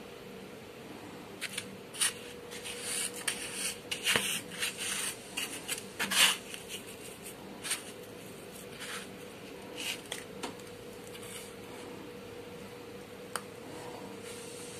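Dry breadcrumbs rustling and crunching in a plastic tray as egg-coated prawns are pressed and rolled in them: a string of short scratchy strokes that dies down after about ten seconds, over a faint steady hum.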